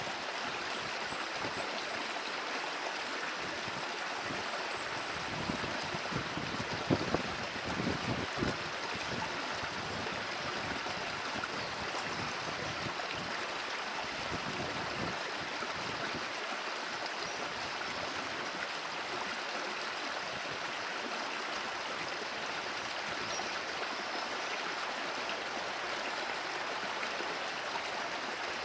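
Steady rushing of flowing stream water, with a few short low thumps about seven to eight seconds in.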